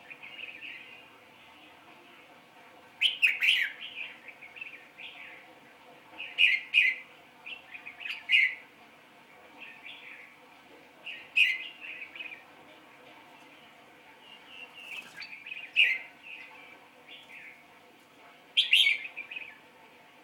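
A bird chirping in short, sharp clusters every few seconds, the loudest near the start of each cluster.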